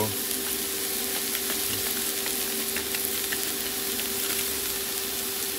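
Sliced onions and green bell peppers sizzling on a hot flat-top griddle, with scattered small pops and crackles over a steady low hum.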